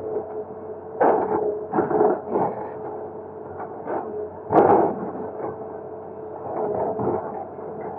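Excavator running steadily while it breaks up a concrete bridge, with irregular loud knocks and scrapes, the loudest about halfway through.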